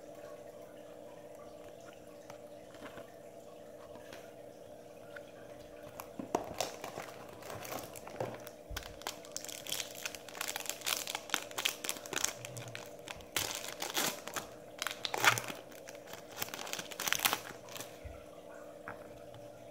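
Foil trading-card pack wrapper being torn open and crinkled by hand: a few seconds of faint steady hum, then a long run of sharp crackles and rustles that stops shortly before the end.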